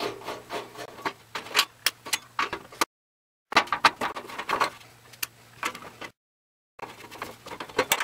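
Rapid clicks, taps and scraping of a hand tool working screws out of a Suburban RV furnace's sheet-metal housing, metal on metal. The sound is broken twice by a moment of dead silence.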